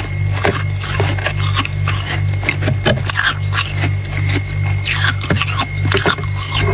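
Freezer frost being scraped and crunched, a quick irregular run of short crackly scrapes, over a steady low hum.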